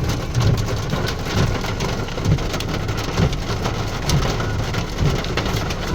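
Heavy rain pelting a car's roof and windscreen, heard from inside the cabin as a dense patter of countless drop taps over the low hum of the engine and road noise.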